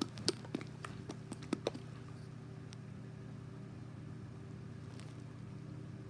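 Homemade slime being handled in a small plastic container: a handful of short wet clicks in the first two seconds, with a faint one or two later, over a steady low hum.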